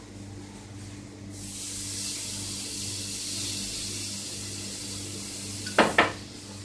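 Water poured into a hot pot of oil-browned onion and spices, hissing and sizzling into steam from about a second in. Two sharp knocks come near the end.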